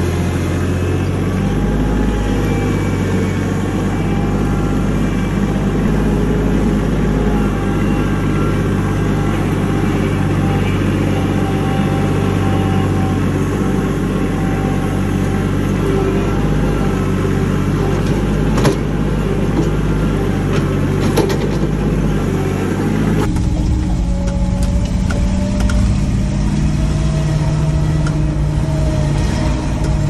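Compact loader tractor's engine running steadily, with a sharp clank about two-thirds of the way through. About three-quarters of the way in the sound changes abruptly to a different vehicle's engine running as it drives.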